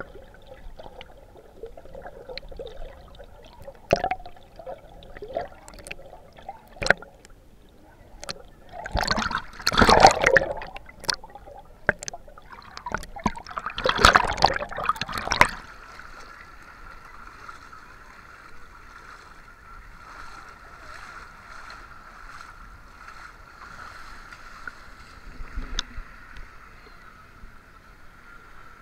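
Water heard through an action camera's waterproof housing. Muffled underwater knocks and clicks come first, then two loud bouts of splashing and sloshing, about 9 to 11 seconds in and again around 14 seconds, as the camera breaks the surface. After that a steady, muffled hum.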